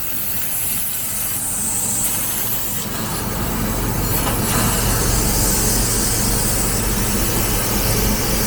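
3000 W fiber laser cutting machine cutting thick steel plate: a steady hiss over a constant low machine hum, growing a little louder about three seconds in.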